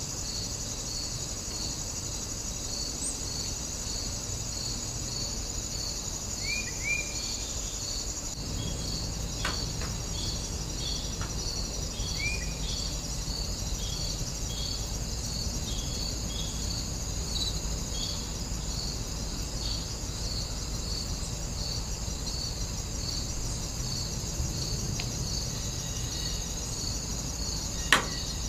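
Steady high insect chorus in dry grass, a continuous buzz with a regular chirp about twice a second. A few short bird chirps come partway through, and there is a sharp click near the end.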